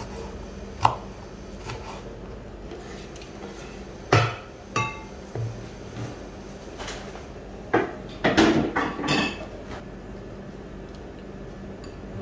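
A few knife strokes on a wooden cutting board, about a second apart. Then kitchen clatter around a glass mixing bowl as the sliced shallots, lemongrass and chili are scraped in and stirred: a loud knock about four seconds in with a brief glassy ring, and a burst of clattering a little later.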